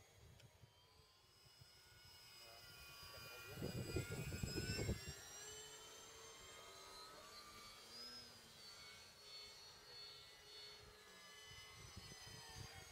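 Twin electric motors and propellers of a Durafly Bf 110 RC model plane whining in flight, several faint tones gliding up and down in pitch as it passes and turns. A burst of low rumble, like wind on the microphone, is the loudest part, about four seconds in.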